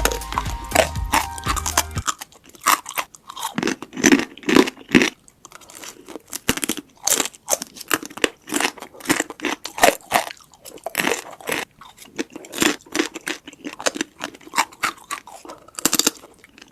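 Close-up crunchy chewing of deep-fried seafood: crisp batter and shell crackling in quick, irregular crunches between bites. Background music plays for about the first two seconds, then stops, leaving only the crunching.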